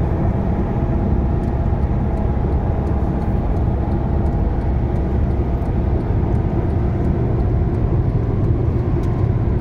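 Steady road noise inside a moving car's cabin at highway speed: an even low rumble of tyres and engine with no changes.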